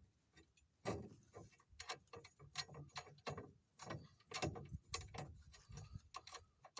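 Hand ratchet wrench clicking in irregular short runs as it works the upper ball joint nut off a truck's steering spindle.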